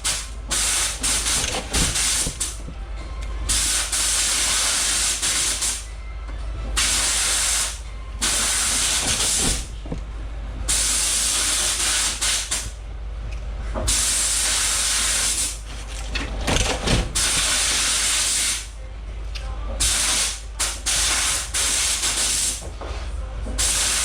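Compressed air blasting in repeated hissing bursts of a second or two each, starting and stopping sharply, of the kind used to blow the outer skins off white leeks, over a steady low hum.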